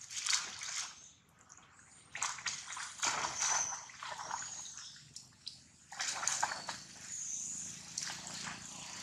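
Macaques splashing and scrambling through shallow muddy water, in three bursts of sloshing splashes with short quieter gaps between.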